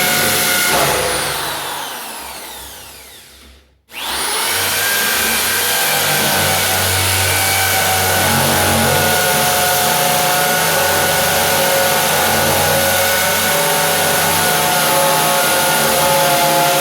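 Britânia BFU01 electric drill running at full speed. About a second in it is released and its motor whine falls in pitch as it spins down to a stop. It is then triggered again and runs steadily.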